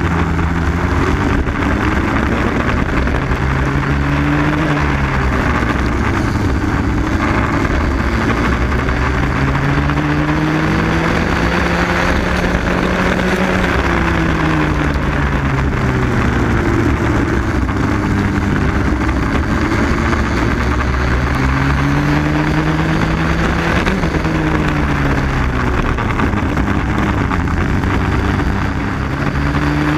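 Onboard sound of a Raket 120 two-stroke kart engine racing on a wet track. Its pitch climbs for several seconds at a time, then falls away, over and over, over a steady hiss.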